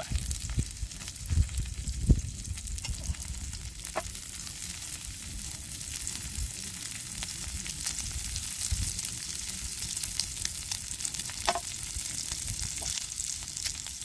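Food frying in hot oil: a steady sizzle full of fine crackles, with a couple of sharper knocks about two seconds in.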